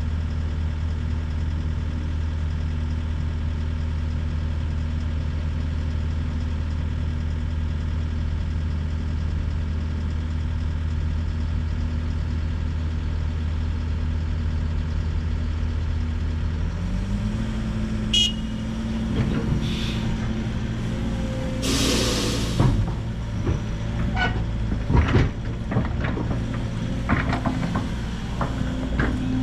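Diesel engines idling steadily: a Link-Belt 145X3E hydraulic excavator with its bucket held up, and a Mercedes-Benz dump truck backing up to it. About two-thirds of the way through the engine note steps up, then the truck's air brakes give a short loud hiss, followed by a run of clanks and knocks.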